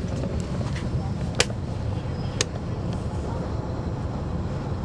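Caterpillar C13 ACERT diesel engine of a NABI 40-foot transit bus running with a steady low rumble, heard from inside at the back of the bus. Two sharp knocks about 1.4 and 2.4 seconds in.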